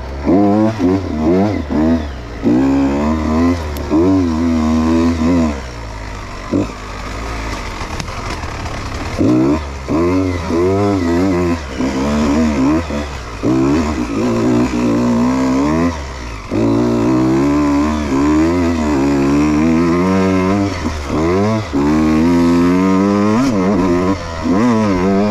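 Beta 125 RR Racing two-stroke enduro motorcycle ridden hard, its engine revving up and dropping back over and over as the rider works the throttle and gears, with a quieter few seconds off the throttle about six seconds in.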